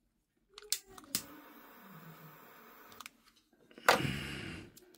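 Small clicks and faint rustling of e-bike wires and connectors being handled and joined, with a louder brief rush of noise about four seconds in.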